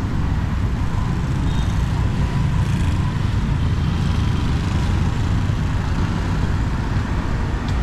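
Steady rumble of passing street traffic, with a few faint short high chirps.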